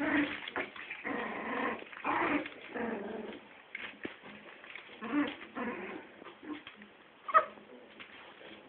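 West Highland White Terrier puppies play-growling and yipping in short bursts as they wrestle, with one sharp, louder yip near the end.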